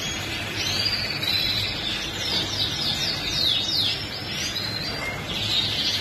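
Caged canaries singing together: overlapping trills and runs of quick downward-sweeping notes, densest from about half a second to four and a half seconds in, over a steady low hum.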